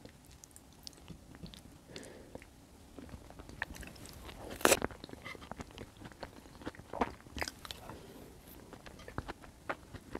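Close-miked eating sounds of soft white beans in tomato sauce being chewed, with wet mouth clicks and smacks throughout. There is one sharper, louder click a little before halfway.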